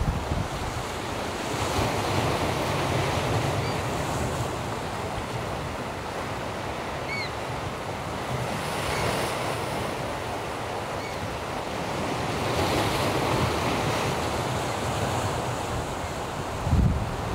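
Sea surf washing and breaking, swelling and easing every few seconds, with wind buffeting the microphone. A few faint, short high chirps sound over it, and there is a louder low gust near the end.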